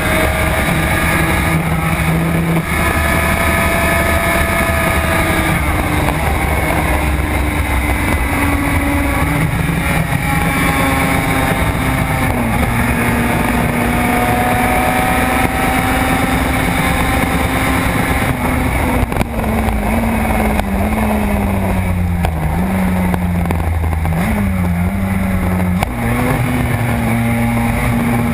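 Suzuki RG500's two-stroke square-four engine pulling hard at racing speed, heard from on board. The engine note holds fairly steady, then drops in several steps in the last third as the rider shifts down for a corner, and climbs again near the end as he gets back on the throttle.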